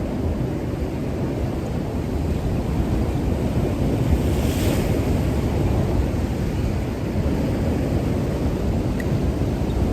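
Wind rumbling on the microphone over the wash of sea surf, steady throughout, with a brief hiss about four and a half seconds in.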